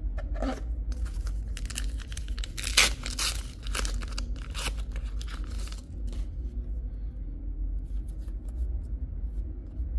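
Foil booster pack wrapper being torn open and crinkled, in a string of irregular rips, loudest about two to three seconds in.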